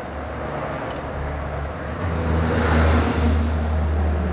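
Power drill turning a long extension bar to back out a screw from a plug cover, its motor running steadily and getting louder about two seconds in.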